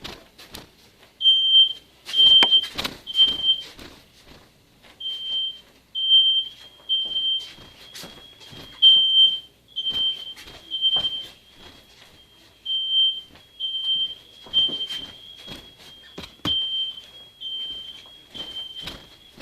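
A child's high-pitched imitation of smoke-detector beeps: short steady-pitched beeps, about one or two a second, starting about a second in and running on with some held longer, mixed with scattered knocks and bumps.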